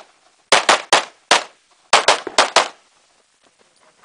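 Handgun shots fired in rapid pairs and short strings, about ten sharp cracks in under three seconds, then a pause of about a second as the shooter moves to the next targets.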